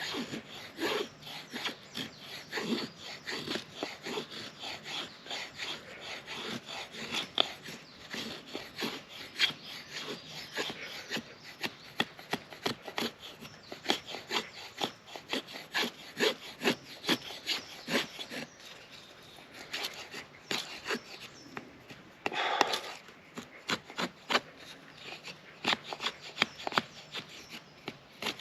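Gerber Freeman folding knife blade shaving along a wooden stick: repeated scraping strokes, about two a second, as in carving a feather stick, with one longer, louder stroke a little past two-thirds of the way through.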